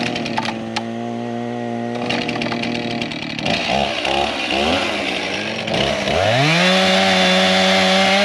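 Two-stroke chainsaw cutting stiff dead branches: it runs at a steady pitch at first, its pitch wavers unevenly with snapping clicks as it bites into the wood, then it revs up about six seconds in and holds a high, steady pitch.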